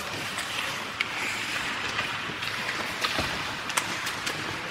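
Ice hockey skates scraping and hissing on the ice, with several sharp clicks of sticks striking the puck and the ice.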